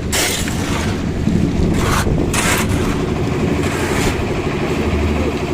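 An engine running steadily with a low, fast-pulsing rumble, and short bursts of hissing noise at the start and twice around two seconds in.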